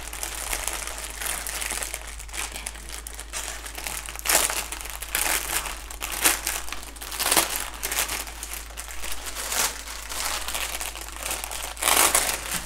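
Clear plastic bag holding small packets of diamond-painting drills crinkling steadily as hands turn and handle it, with louder sharp crackles several times.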